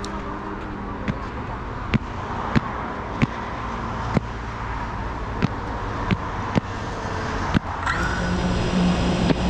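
Road traffic in the background, with a car on the road, under sharp irregular clicks. Near the end a steady hum begins.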